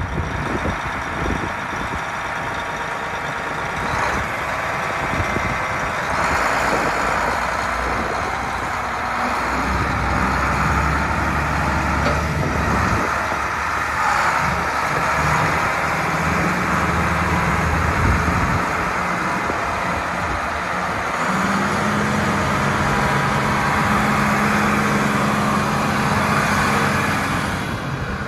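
John Deere 8640 four-wheel-drive tractor's six-cylinder diesel engine running as the tractor drives. The engine note holds steady and shifts to a new pitch a few times.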